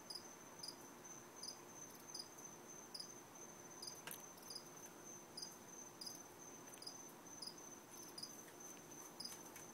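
Crickets chirping faintly: a short high chirp repeating roughly every three-quarters of a second over a steady high-pitched tone, with one sharp faint click about four seconds in.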